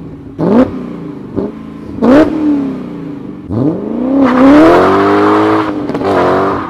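BMW E39 M5's 4.9-litre V8 exhaust: a few sharp throttle blips, each a quick rising bark that falls back to idle, then from about halfway in the car pulls away under acceleration, its pitch climbing, dipping at a gear change, and climbing again.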